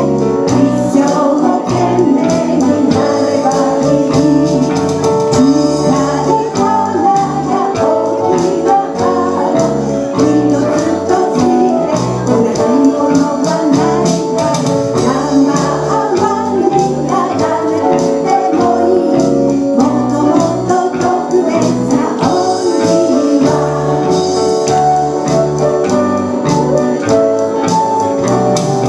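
A woman singing a Japanese pop ballad through a microphone with a small live band, including drums, playing a steady beat under her.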